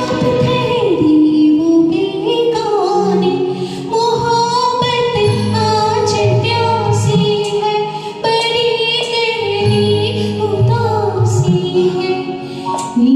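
A woman singing a slow Hindi film song in long, gliding held notes over an instrumental backing track.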